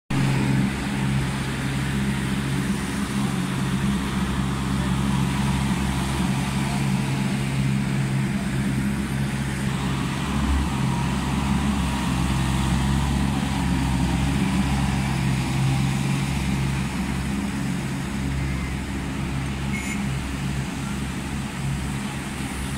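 Ride-on floor scrubber machines running steadily on marble paving: a constant low motor hum under an even hiss.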